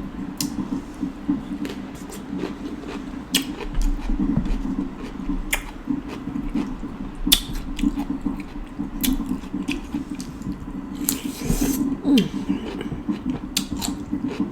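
Close-up chewing and wet mouth smacks of sauce-soaked seafood boil, with scattered sharp clicks and a longer wet burst about eleven seconds in.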